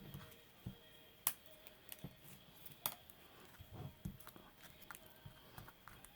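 Faint scattered clicks and taps of hands handling plastic mold containers, with two sharper clicks about a second and three seconds in.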